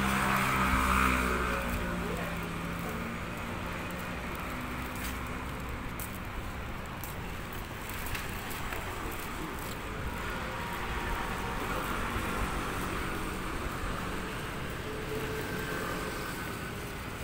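Road traffic passing on a city street, with a vehicle going by loudest about a second in and a steady road noise after.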